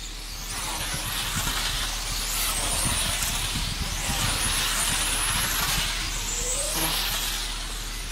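1/10-scale electric radio-controlled racing cars running on the track, their motors giving high-pitched whines that rise and fall as the cars speed up and slow for the corners.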